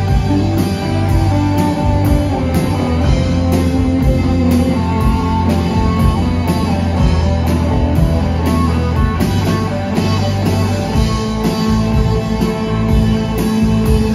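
Live rock band playing an instrumental passage: electric guitars and bass guitar over a drum kit keeping a steady beat of about two hits a second.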